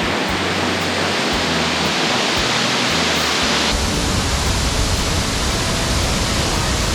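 Waterfall in full flow after heavy rain, a steady loud rush of falling water; about halfway through the hiss thins and a deeper rumble takes over.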